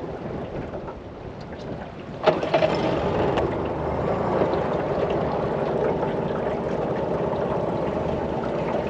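Boat motor running steadily, cutting in suddenly a little over two seconds in, with wind and water noise underneath.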